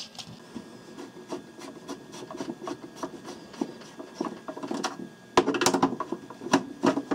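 Screwdriver backing screws out of the plastic bottom case of a Commodore 1541 disk drive: light scraping and small clicks of the bit in the screw heads, with a louder burst of clicking and scraping about five and a half seconds in.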